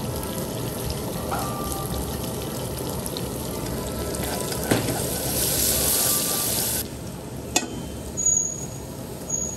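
Chopped garlic sizzling in hot oil in a nonstick wok, with a few light clicks. The sizzle grows louder in the middle, then drops off abruptly about seven seconds in.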